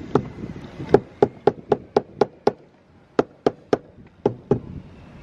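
Soft-faced mallet tapping a chainplate in a sailboat's deck, sharp strikes about four a second in short runs with brief pauses, working a tight chainplate loose from the deck.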